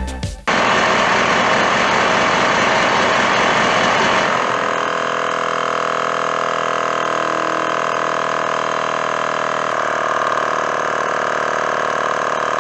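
Train-horn air compressor running steadily under load as it pumps the horn's air tank up toward 200 psi, then cutting off abruptly at the end.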